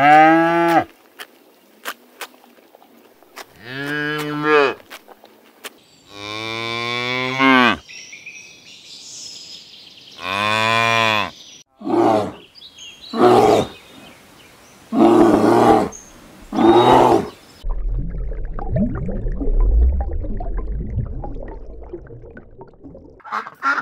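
A cow mooing: several long, deep calls spaced a few seconds apart, followed by a run of shorter calls. Near the end a low rumbling noise takes over.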